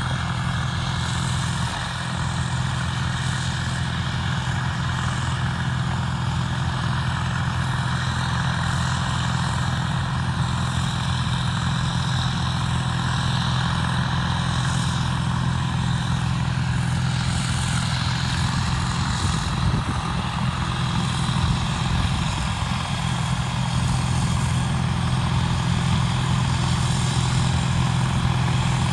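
John Deere 9700 combine running steadily while cutting wheat: a constant engine and threshing hum with no change in pace.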